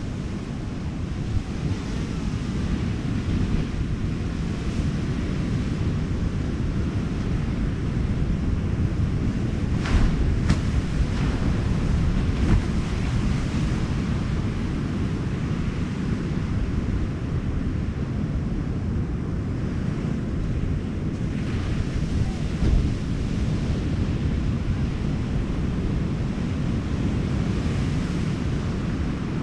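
Wind buffeting the microphone in a steady low rumble, over the wash of ocean surf. A few brief knocks come about ten to twelve seconds in.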